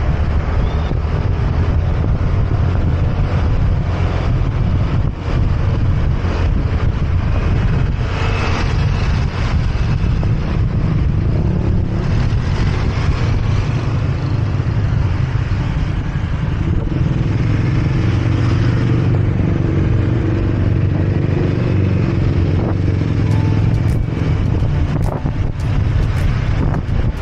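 Motorcycle on the move: the engine runs steadily under a low wind rumble on the microphone and road noise.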